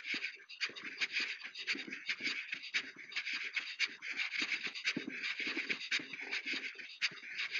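Footsteps crunching steadily at a walking pace, about two steps a second, each step a short gritty crunch.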